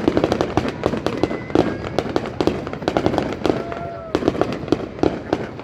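Fireworks display: rapid crackling pops and bangs of many shell bursts in quick succession, densest in the first half and thinning somewhat toward the end.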